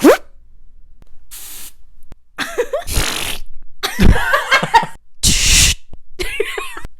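Mouth sound effects made by beatboxers: a series of short hissing, spitting and voiced bursts with breaks between them. The loudest is a sharp hiss about five seconds in.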